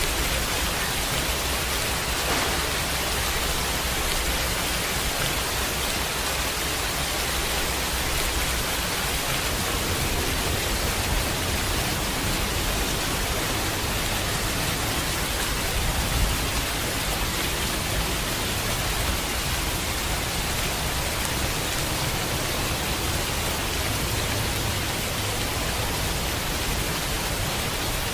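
Steady heavy rain, an even hiss with a low rumble beneath it.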